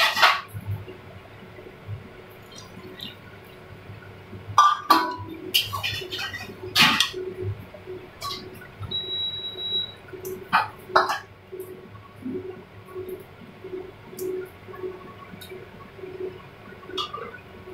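A metal ladle clinking and scraping against a steel kadai, with several sharp knocks, as rice and lentils are stirred in watery liquid for khichuri. Light liquid sloshing and bubbling runs underneath.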